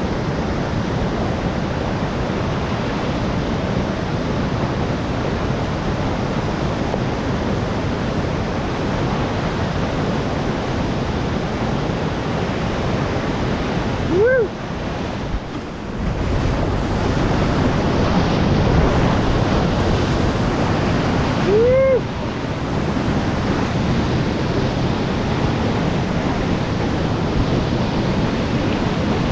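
Steady rush of whitewater pouring over rocky river drops at high flow. Twice a short rising-then-falling call from a person cuts through the water noise.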